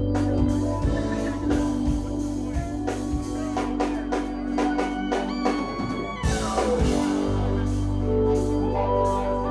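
Live funk band jamming: electric bass, drum kit and keyboards. The bass and low end drop out for a few seconds and come back in. Just before they return, a falling pitch glide sweeps down.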